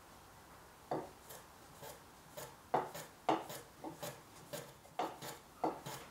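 Small hand plane shaving the end of a hoop pine kumiko strip on a wooden trimming jig, in a quick series of short scraping strokes that begin about a second in. The strip end is being trimmed to length.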